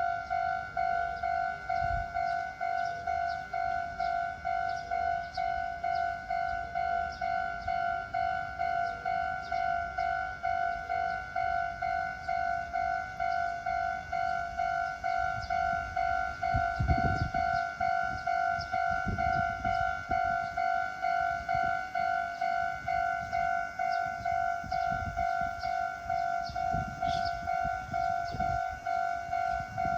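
Electronic level-crossing warning bell ringing in a steady, rapid repeating ding, its tone slightly cracked and distorted. In the second half a low rumble comes and goes, as a train passes over the crossing.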